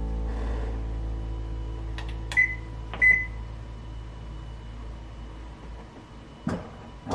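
Two short beeps from a top-loading washing machine's control panel as its buttons are pressed, about two and a half and three seconds in, each just after a faint click of the button. Background music fades away underneath.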